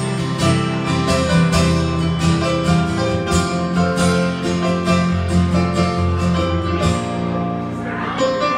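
Live music from an electric stage keyboard: a steady rhythm of struck chords over held low bass notes, with a plucked, guitar-like sound in the mix. The low bass drops out near the end.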